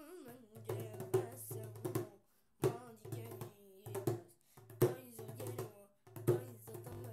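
Hand drum played with bare hands in a darbuka-style rhythm, sharp strikes about twice a second over a deep low note, with a voice singing along between the strikes.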